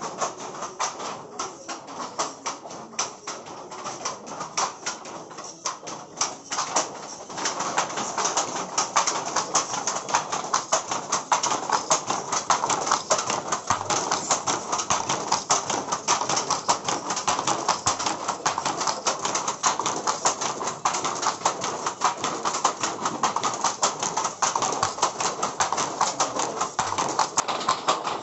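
Handlooms clacking steadily: the shuttle and the wooden beater knock in a fast, dense run of several strokes a second. It gets louder about seven seconds in.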